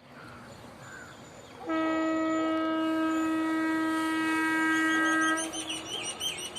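WAP-5 electric locomotive's horn sounding one long, steady, loud blast, starting about a second and a half in and stopping after about four seconds. Short high chirps follow near the end.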